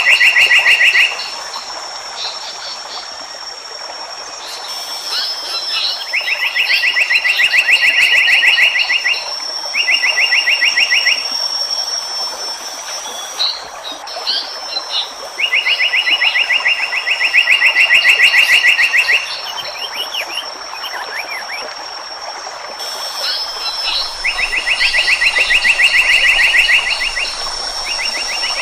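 Wild animal calls: loud trills of rapid, evenly spaced pulses, five runs of one to four seconds each with short gaps, over a steady high-pitched whine and scattered faint chirps.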